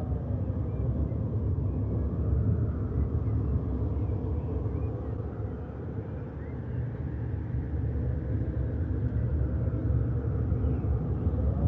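A steady low rumble that swells and eases slowly.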